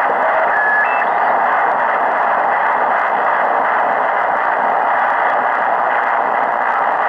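Tecsun PL-680 shortwave receiver in lower-sideband mode giving steady static hiss while being tuned up the 40-meter amateur band. Just before a second in, a brief whistle jumps up in pitch as the tuning crosses a signal.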